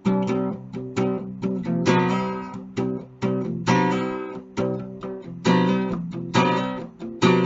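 Acoustic guitar strumming chords in a quick, steady rhythm, with a heavier strum about every two seconds: an instrumental break in a song.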